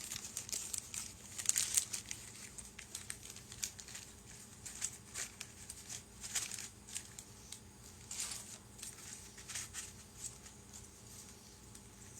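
Packaging crinkling in irregular bursts as small 3D printed model kit parts are handled, busiest in the first couple of seconds and sparser after that.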